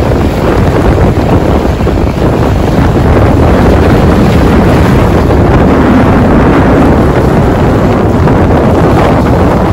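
Wind blowing hard across the microphone, with small sea waves washing against a rocky shore underneath.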